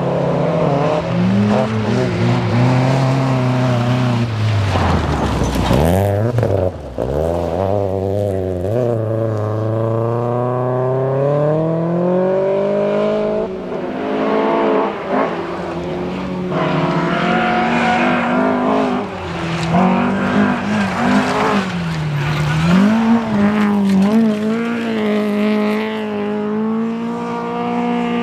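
Historic rally car engines driven hard on a stage: revs climb and drop with gear changes and lifts, including a long rising pull from about eight seconds in.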